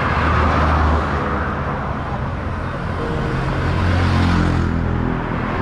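Road traffic passing: a steady engine and tyre rumble from cars and a motorcycle on the paved road, with a motorcycle going by close about four seconds in.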